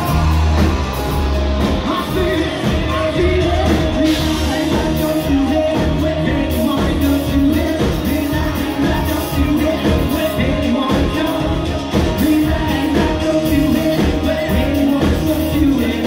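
Live rock cover band playing loudly through a PA, with a singer over electric guitar, bass and drums.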